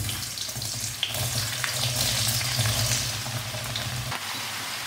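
Diced raw potatoes tipped from a towel into hot oil in a frying pan, the oil sizzling as soon as they go in. A low hum sits under the sizzle and stops about four seconds in.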